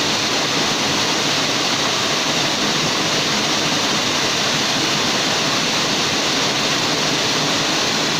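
Waterfall rushing in a steady, loud roar of falling water that does not change.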